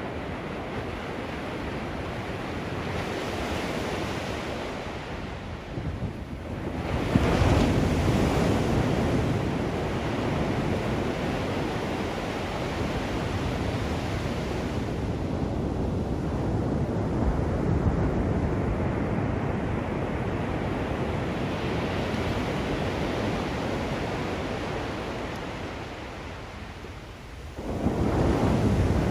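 Ocean surf breaking on a sandy beach: a steady wash of waves, with two louder breakers crashing about seven seconds in and just before the end, each easing off into a long hiss. Some wind rumbles on the microphone.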